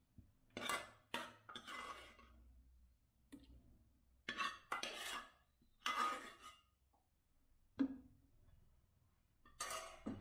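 A metal spoon scraping and clinking against a cooking pot in about eight short, separate strokes, as mashed cooked green gram dal is scooped into a pan of jaggery syrup.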